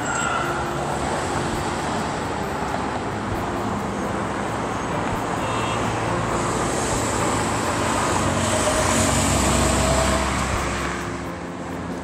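Road traffic noise: vehicles going by on the road, swelling to a louder pass about nine to ten seconds in, then easing off near the end.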